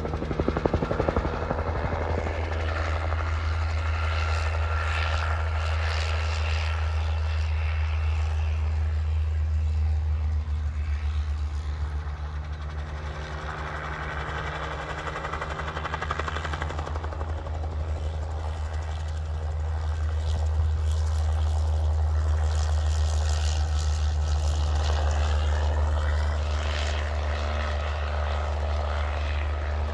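Small helicopter flying low: a steady low throb of rotor beat and engine that grows louder in the second half as it comes closer.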